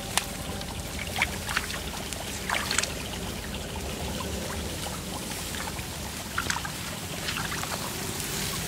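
Shallow muddy water sloshing and splashing as a person wades and moves in it, with a handful of short splashes over a steady trickle of water.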